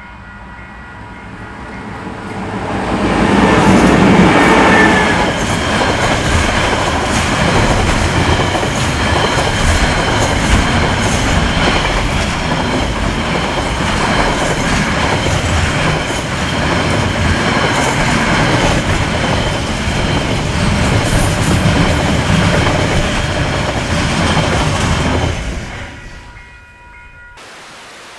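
KiwiRail EF-class electric locomotive and its train passing close by. The noise builds over the first few seconds and is loudest as the locomotive goes past. It stays steady while the rest of the train rolls by, then fades away near the end.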